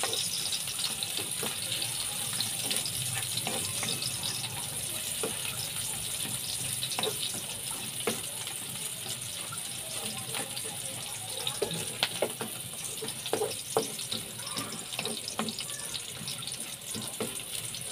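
Squid with onion and garlic sizzling in a hot wok, a steady hiss that eases slightly, with the spatula scraping and knocking against the metal pan now and then.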